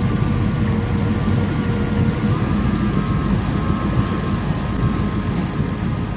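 Jet boat's engine running steadily.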